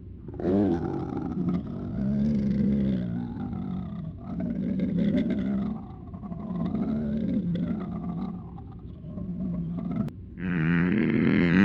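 Garbled, distorted voice-like groaning, like something trying to speak without forming words. It comes as a string of drawn-out sounds whose pitch slides up and down, and turns louder and harsher near the end.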